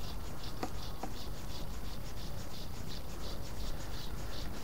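Insect chirping at an even rate of about three short, high chirps a second, over a steady low rumble.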